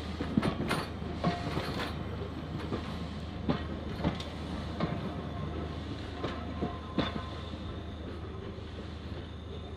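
Heritage railway carriages rolling slowly past and away, their wheels clicking and clanking irregularly over the rail joints over a low rumble. The clicks thin out near the end as the last coach draws away.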